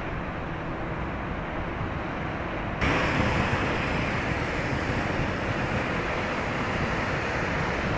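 Outdoor ambience of wind on the microphone and water washing, over a low rumble. About three seconds in it jumps suddenly to a louder, hissier level.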